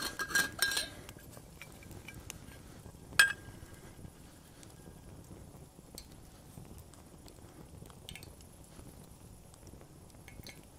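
Stainless steel bottle and its metal cap clinking as the cap is worked open: a quick run of ringing clinks at the start and one sharp clink about three seconds in, then only faint small ticks.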